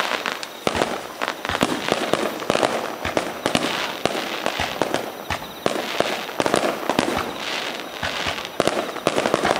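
Fireworks going off: a rapid, irregular run of sharp bangs with dense crackling between them.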